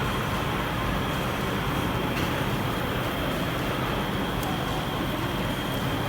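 A 16K20 screw-cutting lathe running, with its motor and gearbox making a steady, even mechanical drone.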